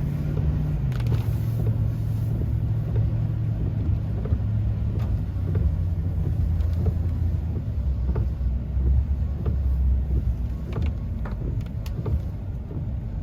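Car driving slowly, its engine and road noise heard from inside the cabin as a steady low rumble; the engine note drops about eight seconds in as the car slows. Scattered light ticks and knocks come near the end.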